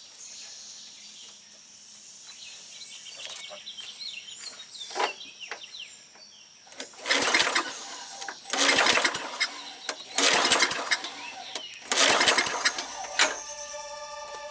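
White Outdoor 6.5 hp push mower pull-started four times in a row, each pull a loud burst of cranking about a second long, then a short final one. The repaired recoil starter rope is being tested.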